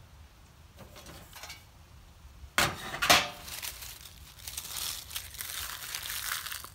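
Two sharp clacks about half a second apart, then dry oak leaves crackling and crunching as a hand rummages through a pile of them.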